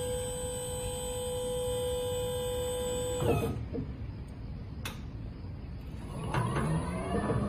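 Electric pallet truck's 1200 W DC drive motor whining steadily, cutting off about three seconds in. A single click follows, then near the end the whine returns, gliding up and down in pitch as the truck moves again.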